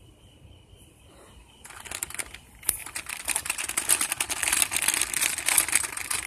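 Dense crackling, rustling handling noise from the phone's microphone being rubbed as the phone is swung about, starting after a quiet second and a half.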